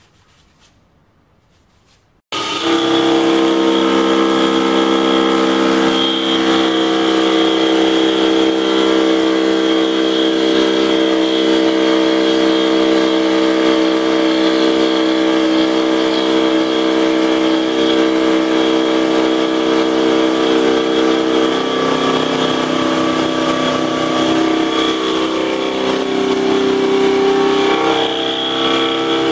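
Small bench lathe spinning a carbide face mill at over 1900 RPM across a cast aluminium block: a steady machining whine with several held tones. It starts abruptly about two seconds in, and its tones shift slightly about three quarters of the way through.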